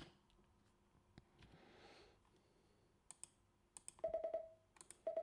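A few sharp clicks, then a Morse code beep tone sounding the letter H (dit-dit-dit-dit) twice, each a quick half-second run of short beeps, about a second apart.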